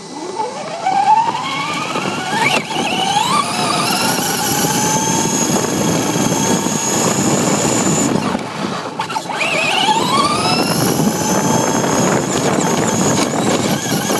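RC car's electric motor and gears whining, rising in pitch as it accelerates from a standstill and then holding a steady high whine at speed, over the rumble of its tyres on pavement. About eight seconds in the whine drops away briefly, then winds up again.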